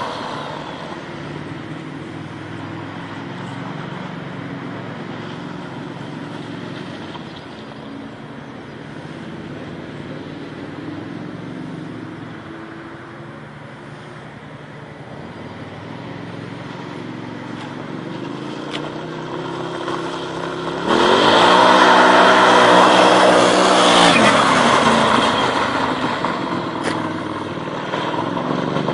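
Turbocharged Arctic Cat Wildcat UTV engine running at varying speed, then opened up about two-thirds of the way through: it gets suddenly louder and climbs in pitch for about four seconds before dropping back.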